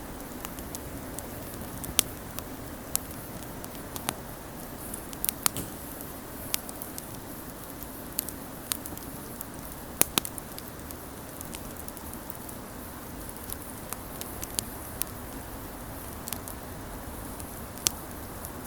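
Wood fire crackling: a steady low hiss of burning with irregular sharp pops and snaps, the loudest about two seconds in and again about ten seconds in.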